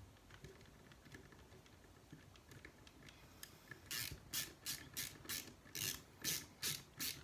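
Hand tool ratcheting as it works a screw in an RC crawler kit's chassis: light scattered ticks, then from about four seconds in a run of short rasping clicks, about two to three a second.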